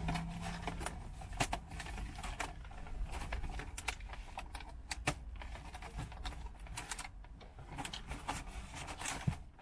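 Irregular light clicking and rustling of things being handled, over a steady low rumble.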